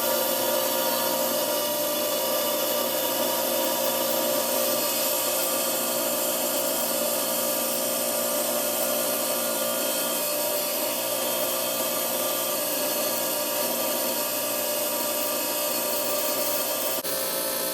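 Diamond-bladed 10-inch slab saw running steadily, its blade grinding through rock over a continuous motor hum.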